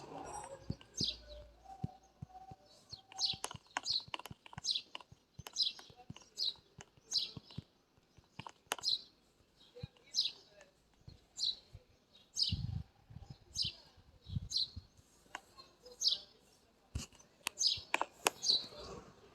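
A bird chirping over and over, short high chirps about once a second, with scattered sharp clicks and a couple of low thumps in the second half.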